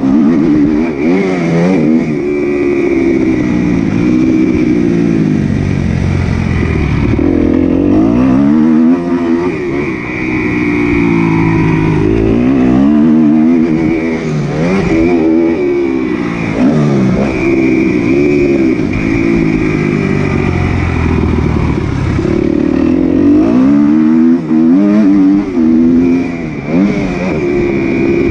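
Several motocross bikes on the track, their engine notes overlapping as each revs up through the gears, drops off and picks up again.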